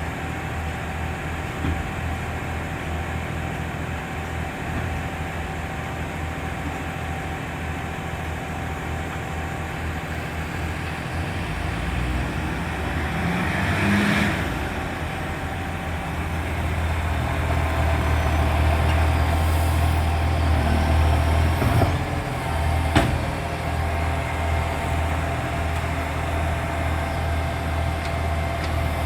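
Garbage truck's diesel engine running with a loud exhaust leak: a steady low rumble with a constant whine over it, louder in the second half. A brief hiss comes about halfway through, and two sharp knocks come about three-quarters of the way through.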